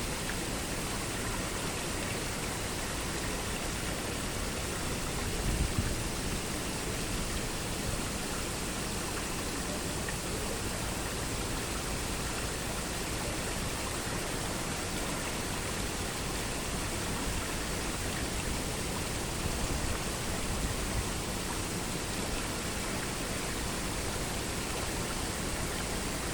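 Steady rushing noise of running water, even and unbroken, with a brief low rumble about six seconds in.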